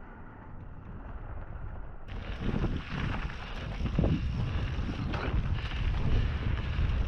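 Wind rumbling on an action camera's microphone, over mountain bike tyres rolling on gravel and dirt. It gets louder about two seconds in, with several surges as the bike rides the dirt jump line.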